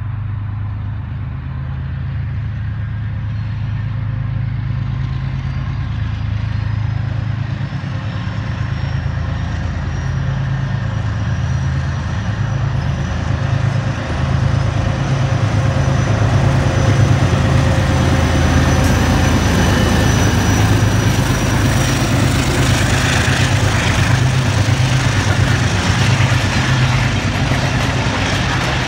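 GE U20C diesel-electric locomotive's V12 diesel engine running with a deep steady throb, growing louder as the train approaches and passes. In the second half it is joined by the rumble and clatter of passenger coaches rolling by on the rails.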